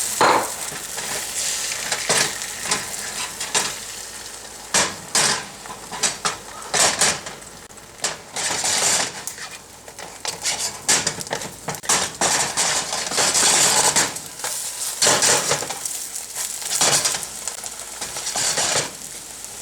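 Beaten eggs sizzling in hot oil in a frying pan, with repeated clacks and scrapes of a utensil against the pan as they are stirred and turned.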